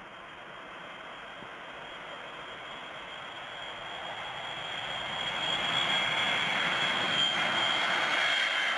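Ilyushin Il-76's four turbofan engines growing steadily louder as the jet flies low toward and past, a rushing jet noise with a high whine coming up out of it about halfway in.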